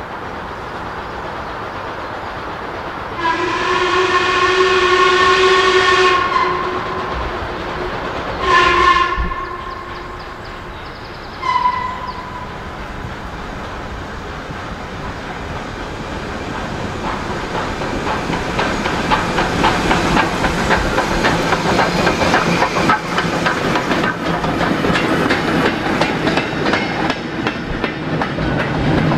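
Steam locomotive whistle: one long blast, then a short one and a brief pip a few seconds later. Then the train approaches and passes, growing steadily louder with a rapid clatter of wheels over the rail joints.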